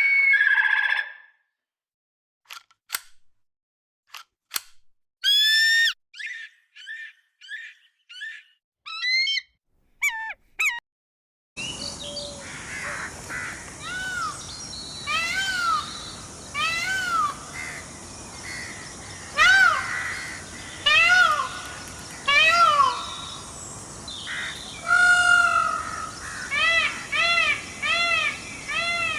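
Animal calls: first a string of short, separate calls and chirps on a silent background, then, about twelve seconds in, a recording with background hiss and a series of repeated rising-and-falling calls that come faster, several a second, near the end.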